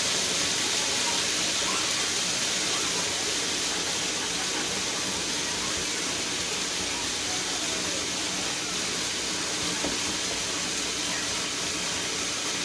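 Hamilton Beach food processor running steadily, its blade grinding dry dog kibble into a powder: an even whirring hiss with no let-up.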